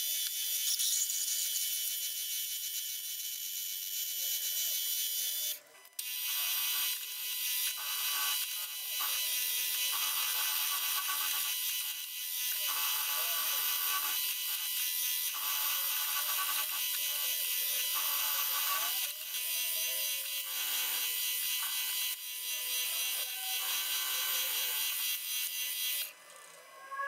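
Milling machine's end mill cutting an aluminium block: a steady high cutting hiss over the machine's running tone, broken by several short gaps.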